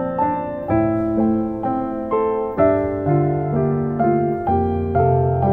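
Gentle background piano music, a steady stream of soft notes about two a second.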